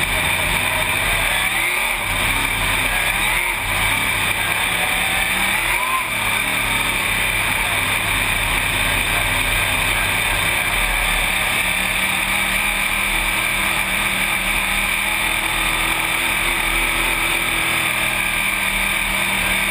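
Dirt late model race car's engine heard from inside the cockpit, running hard at racing speed around a dirt oval. The engine note drops and comes back up a few times in the first six seconds, then holds steady.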